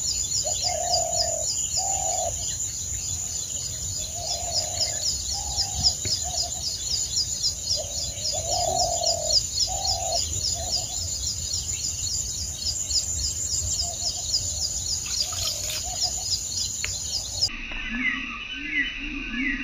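Birds chirping in a fast, even series of high notes, about five a second, over a steady high buzz, with short lower calls now and then. Near the end it breaks off abruptly into a lower, pulsing sound.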